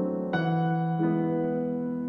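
Piano music playing held chords, with a new chord struck about a third of a second in and another change about a second in.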